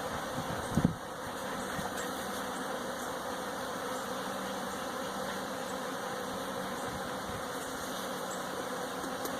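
A swarm of bees buzzing together in a flowering jabuticaba tree: a steady, drone-like hum much like a multirotor drone's motors. A brief thump about a second in.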